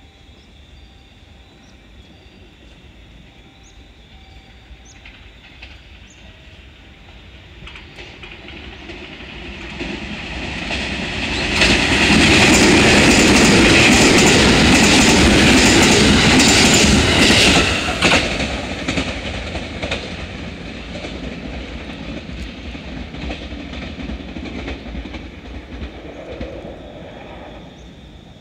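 JR West 221 series electric train running through the station at speed without stopping. It grows louder from about eight seconds in, passes as a loud rush of wheels on rail with rapid clatter over the rail joints for about six seconds, then fades away.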